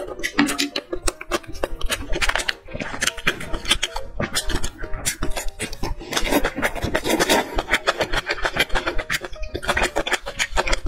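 Close-miked chewing and biting into chili-sauce-coated enoki mushroom skewers: a dense run of small wet clicks and crunches from the mouth.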